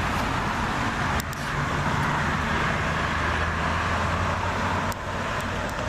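Hanzi 7.5 kW twin-cylinder diesel generator set running steadily with an even engine drone, with a brief dip about a second in and another near the end.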